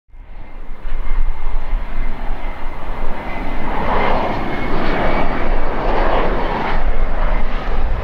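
Bombardier CRJ700 regional jet on approach, its rear-mounted turbofan engines giving a steady roar with a faint whine and a deep rumble underneath, fading in over the first second.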